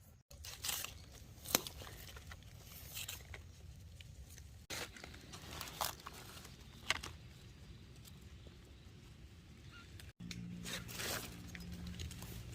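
Rustling and crunching of dry leaves and undergrowth, with scattered sharp snaps, as someone moves through forest litter gathering mushrooms. A low steady hum joins in near the end.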